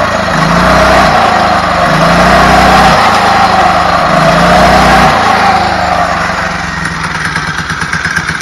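Small engine of a homemade motorized bicycle, running on a freshly fitted two-stroke-type carburetor, revved in three or four short throttle blips, then dropping back to a steady idle about five seconds in.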